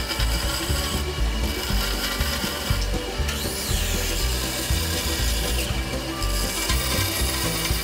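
Band saw running and cutting through a thick piece of hardwood, the blade working along a curve of a chair part; a steady sawing sound over the machine's low hum.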